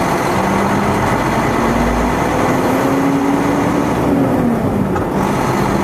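Heavy truck's diesel engine running while driving, heard from inside the cab; its pitch rises slowly and then drops about four seconds in.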